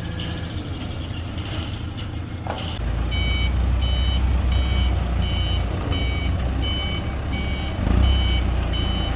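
Truck engine running while its reversing alarm beeps steadily, about one and a half beeps a second, starting about three seconds in. The engine grows louder as the beeping starts and is loudest near the end.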